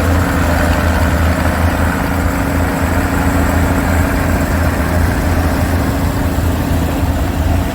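Classic tractor engine running steadily and loudly close by, a deep even drone that cuts off abruptly near the end.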